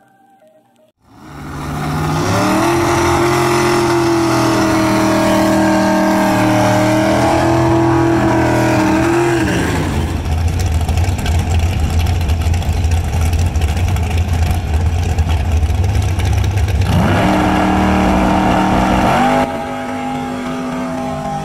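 Supercharged V8 of a Cadillac CTS-V coupe drag car: held at high revs for several seconds, then a deep low rumble, then revving up sharply near the end as the car launches, fading a little as it pulls away.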